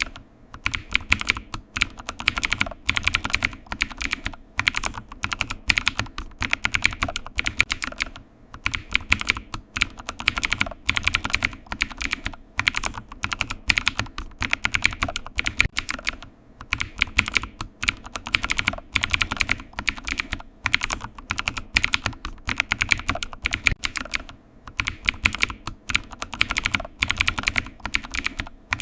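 Computer keyboard typing: rapid key clicks in runs of several seconds, broken by brief pauses.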